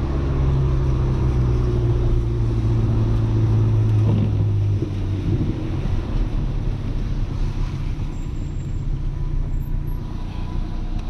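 Audi A3 1.8T 20-valve turbocharged four-cylinder engine running at a steady note, heard from inside the car. About five seconds in, the steady note gives way to a rougher, slightly quieter sound.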